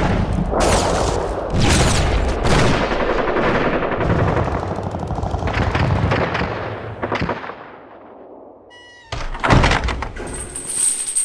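A rapid string of loud gunshots and blasts with long echoing tails, overlapping for about seven seconds before fading out. About nine and a half seconds in comes a sharp hit, then high metallic clinking of brass cartridges tumbling together.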